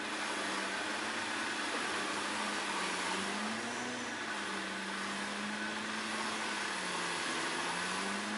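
Off-road 4x4 vehicle running steadily during the recovery of a stuck car: a continuous hum that rises slightly in pitch about four seconds in and again near the end.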